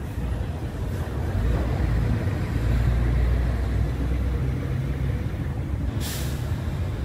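Steady low rumble of road traffic with heavy vehicles, and a brief hiss about six seconds in.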